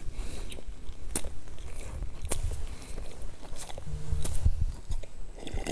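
Close-miked chewing and mouth sounds of a person eating a soft, crumbly coated pastry, with a few sharp wet clicks from the lips and mouth.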